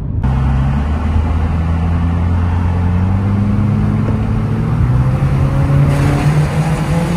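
Subaru car's engine heard from inside the cabin, pulling steadily with its pitch rising slowly as the car gathers speed. Road noise under it grows fuller and more echoing near the end as the car drives into a tunnel.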